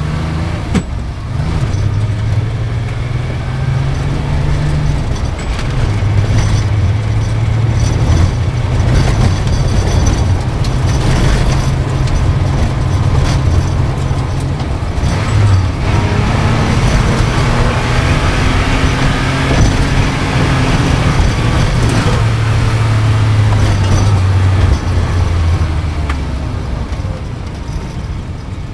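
Sports car engine running hard at speed. Its pitch holds steady for a few seconds at a time and then jumps up or down, as with gear changes, over a constant rush of noise.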